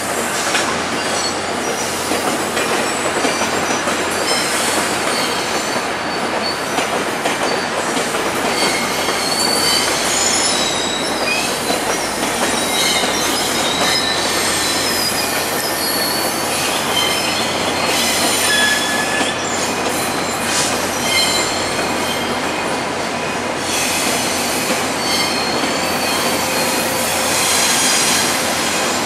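Passenger train led by two F40PH-2 diesel locomotives rolling slowly out of the station over a steady rumble, its wheels giving short, scattered high squeals.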